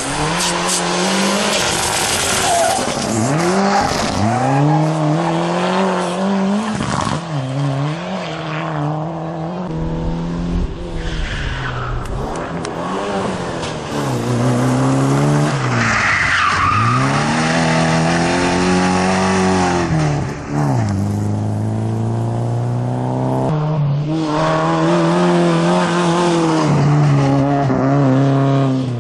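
Race car engine on a circuit, its pitch climbing under acceleration and dropping back again and again through gear changes and corners. Tyres squeal at times.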